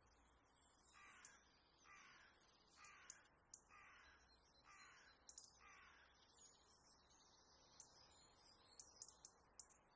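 Faint bird calls: a run of six calls about a second apart over a background of high, thin chirping. A few light clicks come near the end.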